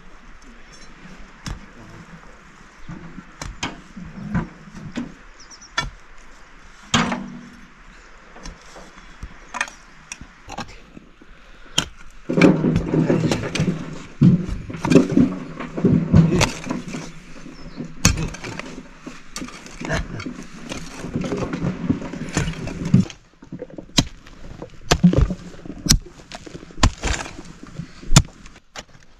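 Hand digging tools striking and scraping earth and stones, an irregular run of knocks and thuds, with a denser, louder stretch of knocking and scraping in the middle.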